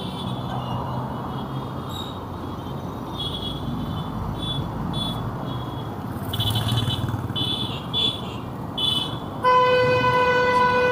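Road traffic with a steady rumble, a run of short high-pitched horn toots, then a long, loud vehicle horn blast starting about nine and a half seconds in.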